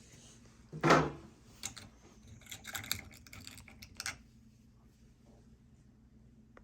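Small water-softener parts (the eductor and its fittings) being handled on a bench: a knock about a second in, then a few scattered clicks and taps, over a faint steady low hum.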